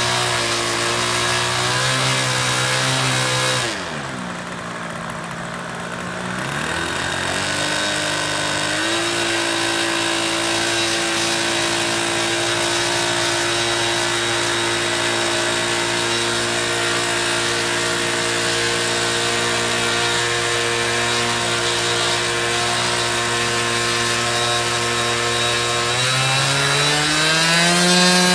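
Small propeller engine of a fixed-wing aircraft running at a steady pitch with a buzzing, chainsaw-like tone. About four seconds in it throttles down, climbs back up over the next few seconds, holds steady, then revs higher near the end.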